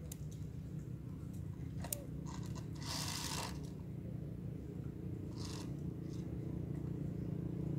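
Macaque handling and mouthing a hard plastic toy motorbike: scattered clicks and scrapes of plastic, the loudest a crunching scrape about three seconds in and a shorter one about two seconds later, over a steady low background hum.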